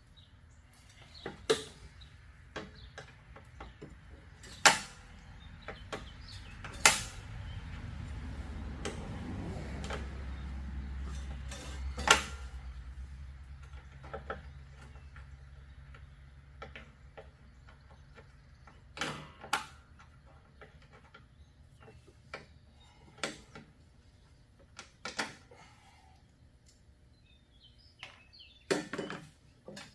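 Scattered sharp clicks and knocks of hands and tools working on a riding lawnmower, about a dozen spread irregularly. A low rumble rises and fades through the middle.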